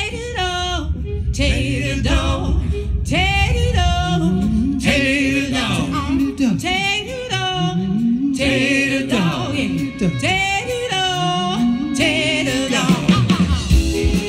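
Live band song with a lead vocal: sung phrases with a wide vibrato that slide down at their ends, over a walking bass line with accordion, fiddle and guitars. The voice stops near the end and the instruments carry on.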